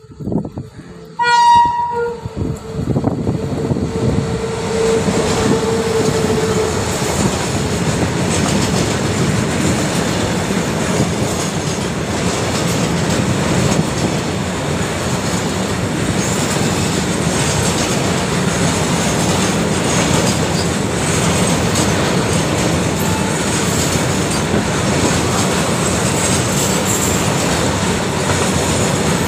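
A freight train's horn sounds in the first few seconds as the locomotive comes in. Then a long rake of railway tank wagons rolls past close by, a steady, loud rumble and clatter of steel wheels on the rails.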